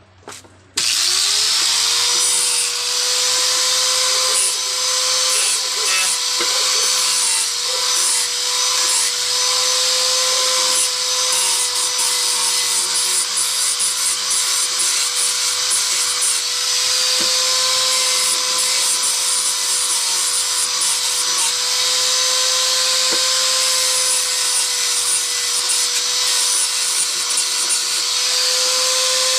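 A power tool spins up about a second in, its whine rising and then holding steady, and runs without stopping while it works the chair's material with a continuous rough hiss.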